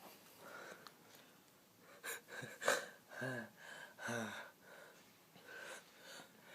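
A boy's gasping 'ah… ah…' breaths as he builds up to a sneeze: several short voiced gasps, the loudest a little under three seconds in.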